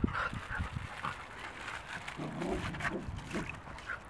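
Dog making short, irregular vocal sounds, with a brief pitched call about two seconds in.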